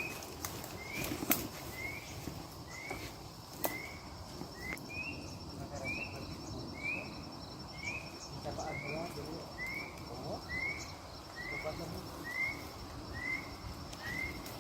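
A bird repeating a short rising chirp about once a second over a steady, high, pulsing insect trill. A few sharp knocks sound in the first few seconds.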